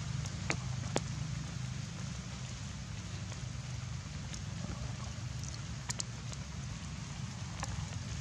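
Light rain or dripping water after rainfall: a steady hiss over a low rumble, with a few sharp single drips or taps, about one second in and again around six and eight seconds.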